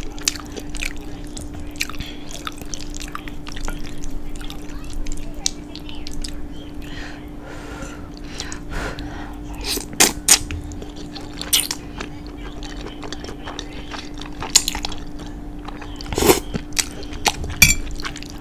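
Close-up chewing and wet mouth sounds of eating saucy fettuccine, with noodles sucked in and irregular sharp clicks of a metal fork against the plate.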